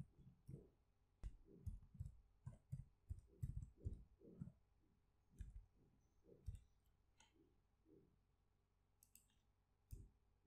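Faint typing on a computer keyboard: a quick run of keystrokes over the first four and a half seconds, then a few scattered keystrokes.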